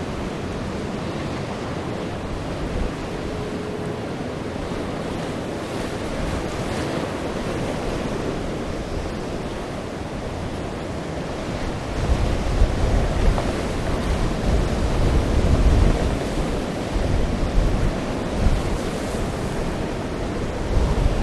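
Storm surf and strong wind over a rough sea, a steady rushing noise. From about halfway through, gusts buffet the microphone with uneven low rumbles and the sound gets louder.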